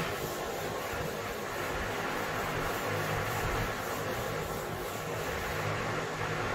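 Whiteboard duster rubbing across a whiteboard in quick repeated strokes, stopping shortly before the end, over a steady background hiss and low hum.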